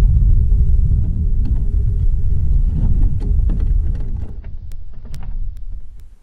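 Heavy low rumble of air buffeting and handling noise on a high-altitude balloon payload's onboard camera microphone, with a faint steady hum. From about halfway through, scattered sharp ticks and clicks from the payload casing come in as the rumble fades, then the sound cuts off abruptly.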